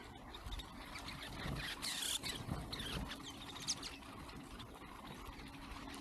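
A flock of snow buntings feeding, with scattered short high calls and a brief rush of noise about two seconds in, over a low rumble.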